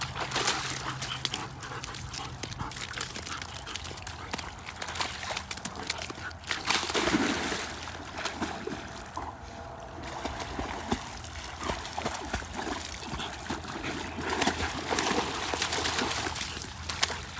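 A German Shepherd wading and lunging through shallow water, with repeated irregular sloshing and splashing.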